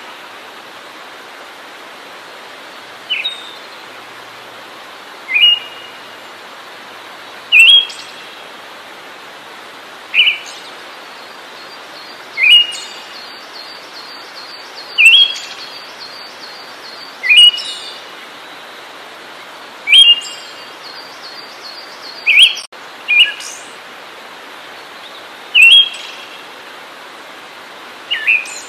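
A songbird repeats a short, sharp call about every two and a half seconds, a dozen times, over a steady hiss. A faint rapid ticking sits behind it for a while in the middle.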